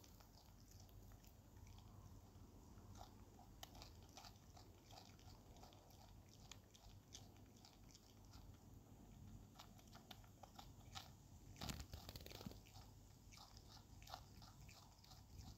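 Possum biting and chewing fresh capsicum: a run of faint, irregular crisp crunches, with a louder cluster of bites about twelve seconds in.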